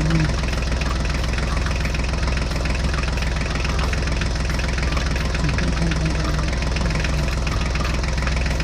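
Tractor engine running at a steady idle-like chug.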